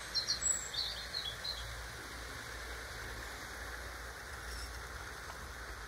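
European robin singing a few short, high phrases in the first second and a half, over a steady low background rumble.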